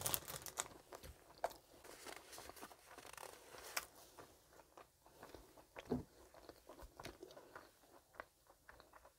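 Close-miked chewing of a crusty pastry. Crisp crunches come in the first few seconds, then softer chewing.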